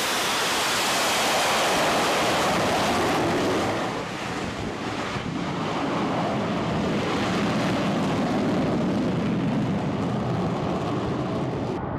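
F-35B Lightning II's F135 jet engine and lift fan at takeoff power during a short takeoff, a loud, steady rush of jet noise. It drops a little about four seconds in and carries on as the jet climbs away. The high hiss cuts off suddenly near the end.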